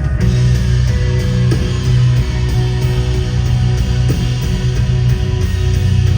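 Live rock band playing an instrumental passage through the PA, led by electric guitar over sustained bass notes, at a steady high level.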